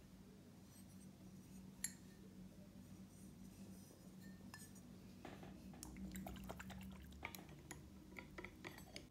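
Faint clinks and taps of a glazed ceramic dish being handled: one sharp click about two seconds in, then a run of small clicks and knocks over the last few seconds.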